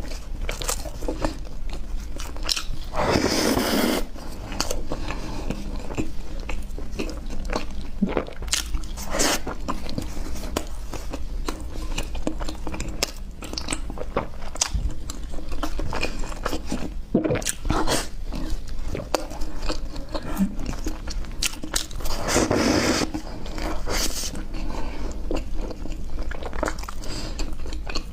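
Close-miked eating of chocolate ice cream bread: repeated bites and chewing with many small wet mouth clicks. There are two longer, louder noisy stretches, about three seconds in and again about twenty-two seconds in.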